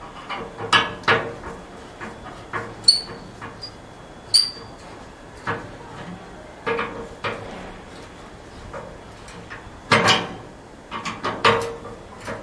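A hand tool knocking, scraping and clicking against the sheet-metal cabinet of an old gas stove as it is being taken apart, in irregular sharp clanks, a cluster about a second in and another around ten seconds in.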